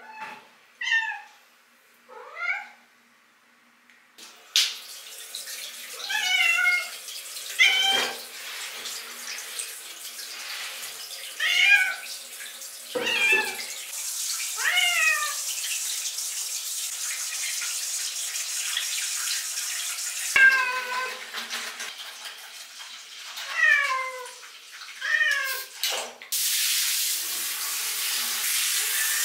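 Domestic cat meowing over and over, about ten separate calls, many sliding down in pitch, echoing in a tiled shower stall. A handheld shower head runs as a steady hiss of water from about four seconds in, louder for a stretch in the middle and again near the end.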